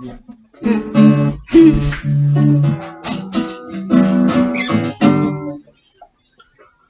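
Acoustic guitar strumming chords for about five seconds, then stopping.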